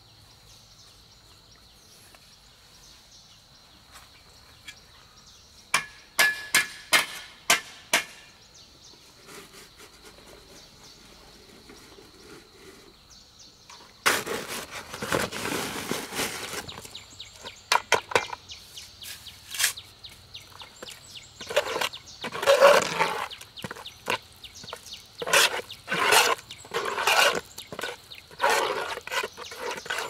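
Irregular sharp knocks and clinks of hard objects, with a run of scraping for a couple of seconds about halfway through, over a steady high-pitched tone.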